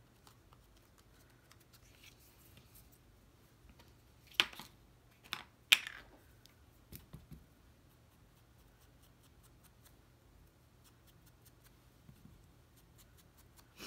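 Handling of cut cardstock pieces at a crafting desk: a few sharp clicks and snaps, the loudest two about four and a half and six seconds in, with a few softer ones after.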